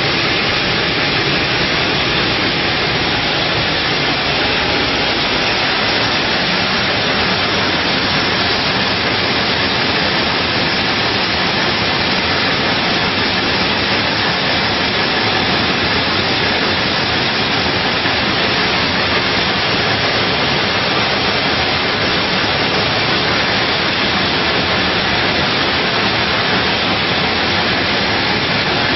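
Rotary bottle-filling combi block running: a loud, steady, even hiss of machinery with no distinct beat.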